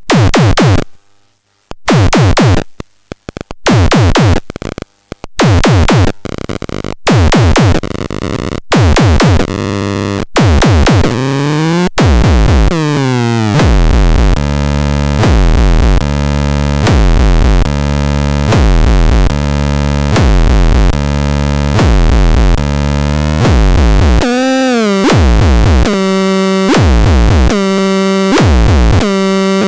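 Minimal techno from an electronic production setup: heavy synthesized hits with falling pitch repeat about every second and a half, then about twelve seconds in they give way to a dense, held synth tone pulsing in the same rhythm, its pitch wavering from about twenty-four seconds in.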